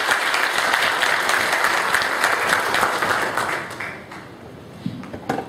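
Audience applauding, dense clapping that dies away about four seconds in, followed by a couple of short knocks near the end.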